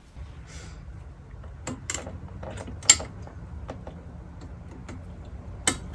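A few sharp clicks and light knocks from fans and fan clips being fitted onto a Thermalright Peerless Assassin 120 tower cooler. The loudest click comes about three seconds in and another near the end, over a low steady hum.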